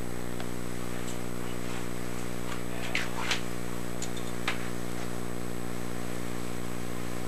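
Steady low electrical hum with a buzzy edge, unchanging throughout. A few faint rustles and small knocks come about three to four and a half seconds in, as a heavy coat is handled and buttoned.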